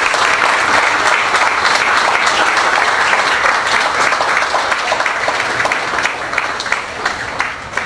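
Audience applauding: a dense, steady round of clapping that eases off slightly near the end.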